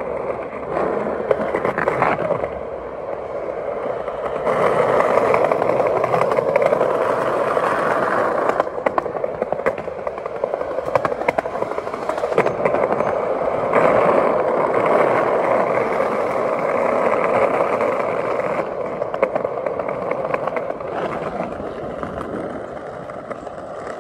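Loud skateboard wheels rolling over pavement and paving tiles: a steady rolling rumble that swells and eases in stretches, with scattered sharp clacks.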